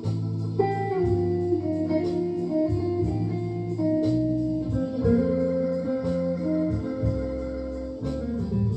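Stratocaster-style electric guitar playing a melody of held single notes that change every half second or so, over steady low notes underneath.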